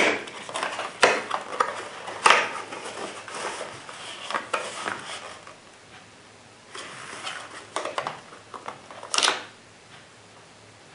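Cardboard box of shotgun shells being handled: paperboard rustling and scraping as the box is opened and the tray of shells slid out, with several sharp clicks and taps, the loudest about two seconds in and again near the end.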